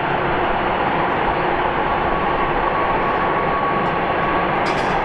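Airbus A330-300's Pratt & Whitney PW4000 turbofan engines running at taxi power as the airliner taxis: a steady jet rumble and hiss with a faint steady whine through the middle.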